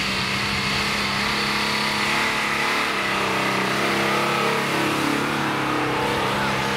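Nissan Patrol SUV's engine running under load as it drives through snow, with a steady drone and the pitch rising as it accelerates about halfway through.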